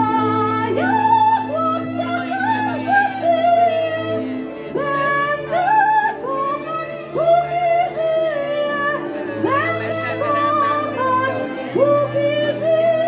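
A woman singing a folk melody through a stage microphone, her voice gliding and ornamenting between notes over sustained low chords that change every few seconds.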